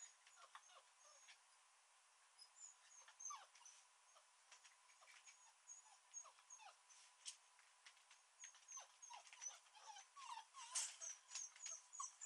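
Dogs whimpering and whining faintly in short, squeaky cries, with light clicks scattered among them, busier in the last few seconds.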